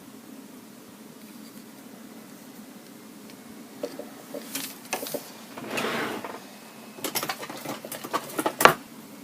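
Small hard objects being handled on a bench: scattered clicks and knocks, a short rustle, then a quick run of clicks ending in one louder knock, over a steady low hum.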